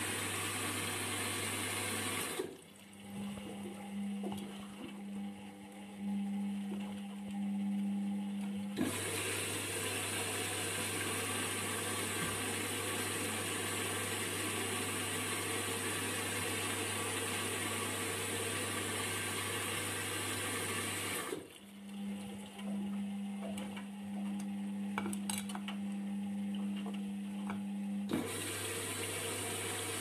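Indesit IWUC 40851 front-loading washing machine taking in water: a steady rush of water filling the drum with a low hum under it. Twice, for about six seconds each, the water stops and the drum motor turns the wet laundry with a steady low hum and a few clicks and sloshes.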